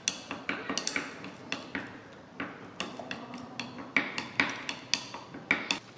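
Irregular clinks and taps, a few each second, of a stirrer against the side of a glass beaker as two-part epoxy resin is mixed in it.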